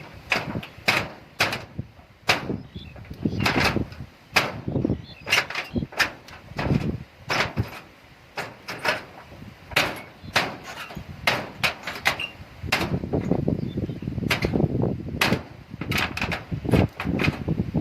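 Irregular knocks and bangs, two or three a second, over an uneven low rumble.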